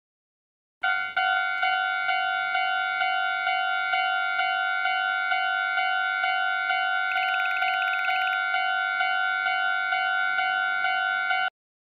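Japanese railroad crossing's electronic warning bell going kan-kan: a steady ding repeating about twice a second. It starts just under a second in and cuts off suddenly near the end, with a short warbling trill over it midway.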